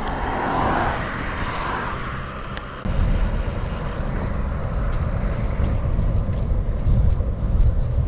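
Wind and road noise from riding a bicycle at speed: a steady rush with traffic swelling past in the first couple of seconds. About three seconds in it cuts abruptly to heavy, low wind rumble buffeting the microphone.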